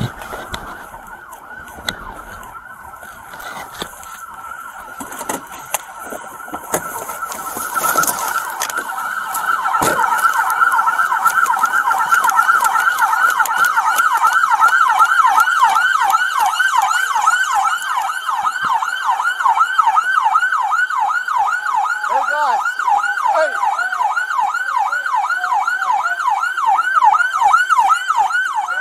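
Police car siren, at first a steadier, quieter tone, then about eight seconds in switching to a loud fast yelp of rising sweeps, about three or four a second. Knocks and rustling of movement in the first few seconds.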